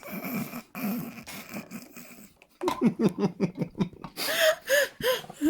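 A person's breathy laughter, then a quick run of voiced laughs about halfway through.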